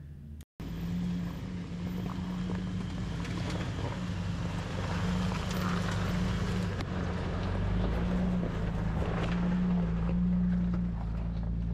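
Four-wheel-drive truck's engine running at low, steady revs while driving a dirt trail, with a steady low hum and an even wash of tyre and road noise and a few light knocks. The sound cuts in about half a second in.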